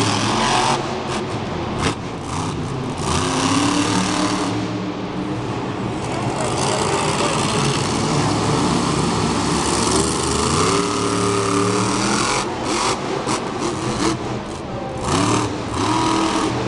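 Rolling Thunder monster truck's supercharged V8 running hard and revving up and down several times.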